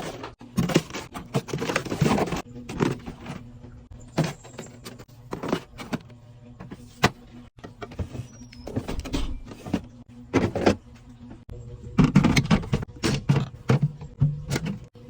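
Groceries and containers being handled and set into a refrigerator: irregular knocks, clicks and rustling of packaging, busiest about twelve seconds in.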